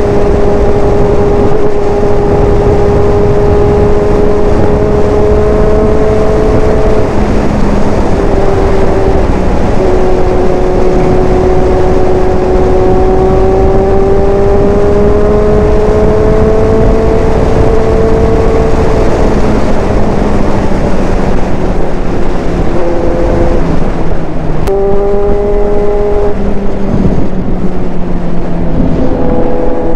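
Big motorcycle's engine running hard at highway speed in sixth gear, a steady high engine note under loud wind rush over the microphone. The pitch climbs slowly in the middle, then falls and changes in steps in the last few seconds as the bike slows.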